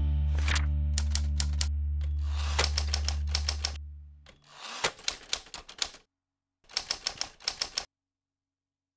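Typewriter key strikes, a typing sound effect, clacking in four short runs of quick strokes. Under the first two runs the last held chord of the intro music fades out about four seconds in.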